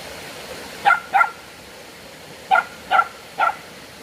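A dog barking five times: two quick barks, then after a pause three more.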